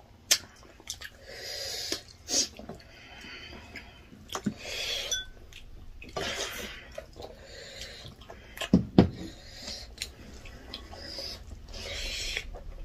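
Eating sounds from rice and spicy chicken eaten by hand: chewing, lip smacks and slurps, with scattered sharp clicks from fingers and food against steel plates.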